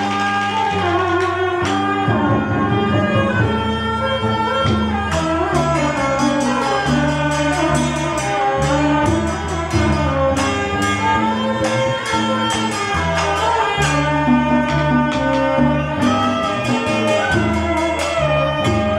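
Instrumental music: several melodic instruments playing over a regular percussion beat.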